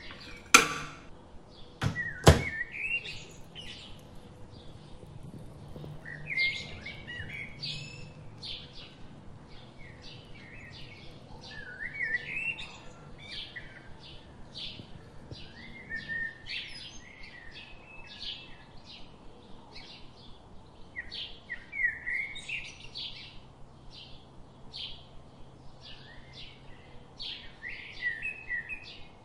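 Small birds chirping, with a steady run of short chirps and warbles, several a second. Two sharp clicks come near the start, about half a second and two seconds in.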